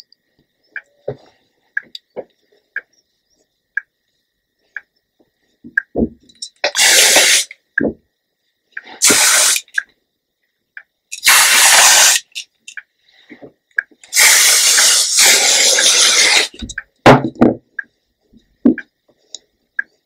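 Aerosol hairspray can sprayed onto hair in four hissing bursts, the last lasting about two and a half seconds, with small clicks between them and a few sharp knocks near the end.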